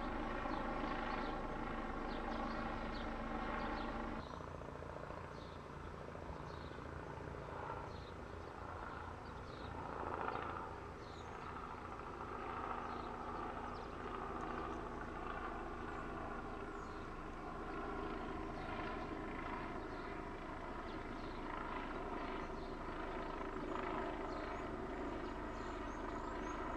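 Small helicopter flying overhead, its rotor and engine making a steady drone. About four seconds in the sound changes abruptly to a fainter, more diffuse drone as the helicopter is further off.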